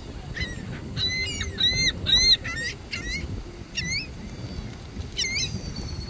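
Gulls calling: a quick run of sharp, shrill cries about one to two and a half seconds in, then a few spaced single cries.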